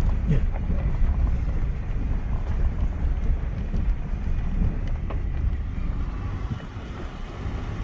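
Off-road vehicle driving slowly over a rough gravel and rock track, heard from inside the cabin: a steady low rumble of engine and tyres with a few faint knocks.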